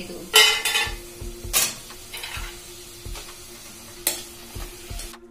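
A flat steel spatula stirring fried badi through bubbling tamarind water in a metal kadai, scraping and clanking against the pan. The loudest clanks come about half a second in, at about one and a half seconds, and about four seconds in, over a steady sizzle.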